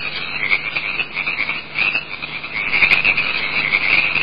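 A dense chorus of frogs croaking, high-pitched and continuous, many calls overlapping without a pause.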